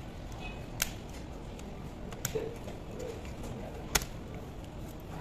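Sharp clicks and taps of a screwdriver and fingers on a laptop's metal keyboard plate and plastic chassis during disassembly. The loudest click comes about four seconds in, another about a second in, with a few lighter ticks in between, over steady background noise.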